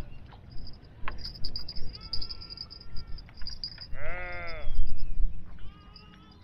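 A sheep bleating about four seconds in, one long call that rises and then falls in pitch, with a second bleat starting right at the end. Thin chirps of small birds and a low rumble run underneath.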